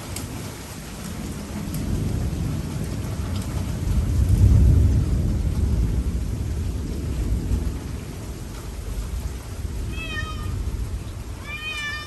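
Thunder rolling over steady rain, swelling to its loudest about four to five seconds in and then fading. Near the end a cat meows twice.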